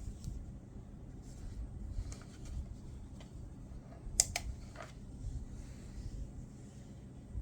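Small clicks and light rustling from handling things at close range, with a sharp double click about four seconds in, over a steady low room hum.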